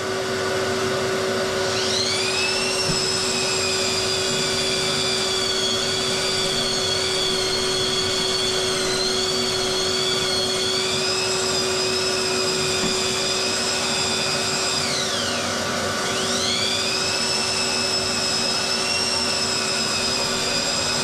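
An electric drywall sander with a vacuum attached to its dust port runs steadily. The sander's high whine rises to speed about two seconds in and wavers as the head works the wall. About three-quarters through, the whine falls away and climbs back up, while the vacuum's steady hum runs underneath.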